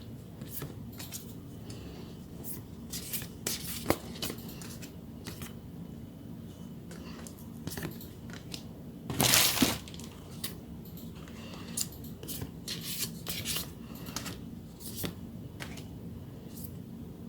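Plastic packaging and photocards being handled, with scattered light rustles and clicks and one louder tearing crinkle about nine seconds in.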